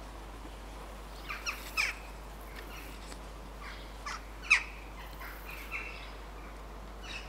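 Jackdaws calling: short, sharp calls in scattered groups, the loudest about four and a half seconds in.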